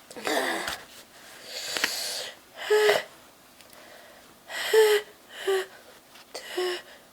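A woman in a sneezing fit: a long breathy intake, then four short, high-pitched sneezes about a second apart, the loudest near five seconds in.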